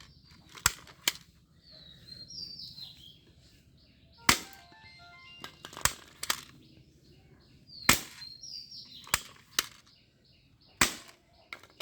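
Toy gun firing, a sharp crack about every one to two seconds, roughly ten in all, with short high chirps and brief beeping tones between the shots.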